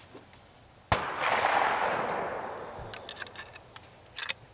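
A single gunshot about a second in, its echo rolling away over roughly two seconds, followed by a few light clicks near the end.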